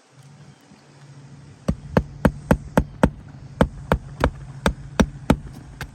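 A hammer driving roofing nails through a shingle, with about a dozen quick, sharp blows in two runs at roughly three to four strikes a second.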